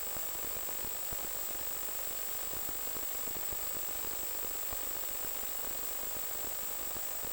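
Steady static hiss with a thin, constant high tone and a few faint crackles, the noise of an analog FPV video receiver's audio channel; no motor note comes through.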